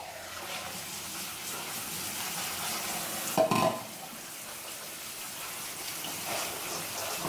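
Liquid splashing and trickling into a stainless-steel sink as canned black beans are drained through a colander, with one brief louder sound about three and a half seconds in.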